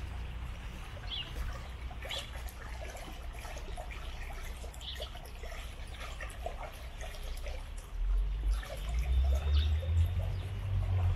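Water trickling in a narrow ornamental garden channel, with scattered bird chirps. A low rumble comes up about three-quarters of the way through and is the loudest sound by the end.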